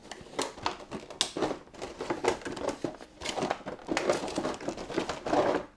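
Clear plastic blister cover crackling and crinkling as hands pry it off a packaging tray: a quick, irregular run of clicks and crackles.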